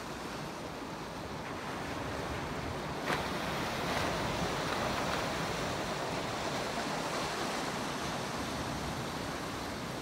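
Small sea waves breaking and washing in: a steady surf hiss that swells about three seconds in and slowly eases off, with one brief click just as it starts to swell.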